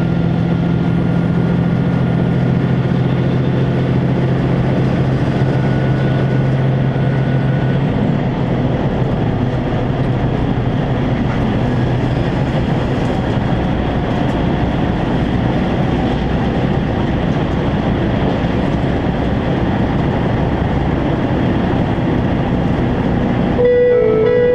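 Running noise of a Chizu Express HOT7000-series diesel multiple unit at speed, heard inside the car: a steady rumble of wheels on rail with a low engine drone that drops away about eight seconds in. Music cuts in about a second before the end.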